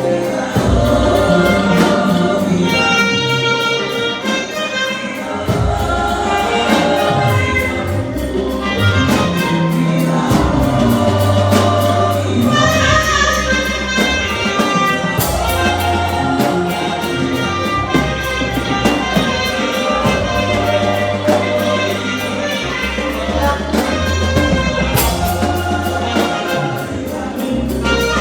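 Live gospel worship music: singing over a band, with a prominent moving bass line and a steady beat.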